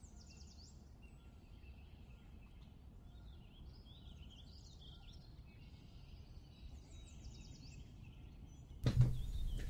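Faint birdsong: scattered chirps and short trills of small birds over a low steady hiss. Near the end a louder rustling noise starts.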